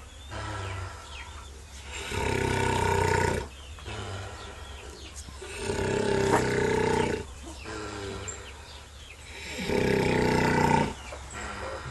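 Sow snoring: loud, drawn-out, pitched snores of a second or more, three times about four seconds apart, with quieter breathing between.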